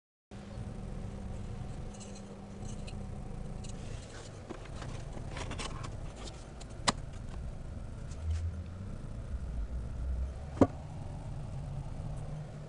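Handling noises as a small wooden servo box is fitted into a cutout in a model aircraft's fuselage: scattered light clicks and scrapes, a few low thumps and two sharp taps a few seconds apart, over a steady low hum.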